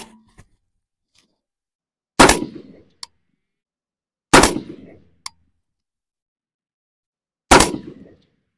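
Knight's Armament SR-25 semi-automatic .308 match rifle firing single shots to confirm its zero: one right at the start, then about two, four and seven and a half seconds in, each a sharp crack with a short echoing tail. A faint click follows shortly after two of the shots.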